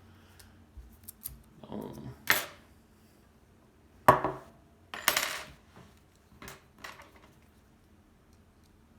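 Small metal padlocks and lock picks clinking and rattling as they are handled and set down, a string of separate clicks and short rattles with the loudest a sharp metallic clink about four seconds in.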